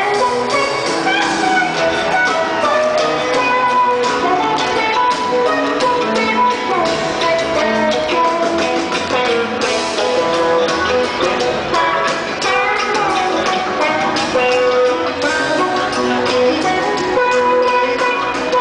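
Live rock band playing a jam with electric guitars and drum kit, recorded from the audience of an arena concert.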